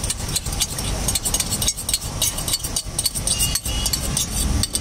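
Light metal clinks and rattles of steel kitchen utensils as gravy is scraped out of a small steel bowl, over a steady low rumble of street traffic.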